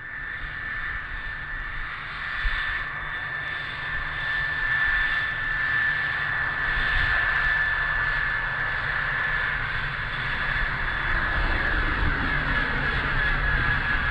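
Electric ducted fan of an FMS F-16 model jet (70mm, 12-blade fan) running at high power during its takeoff run on grass and lift-off. It makes a steady high-pitched whine over rushing air, growing louder over the first few seconds.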